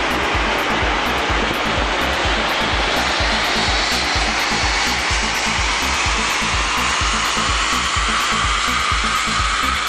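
Audi A7 3.0 V6 TDI diesel running a power pull on a chassis dyno: a steady, loud rushing roar of the engine and the wheels on the rollers, with a whine that climbs in pitch as the revs build. Background music with a steady beat plays underneath.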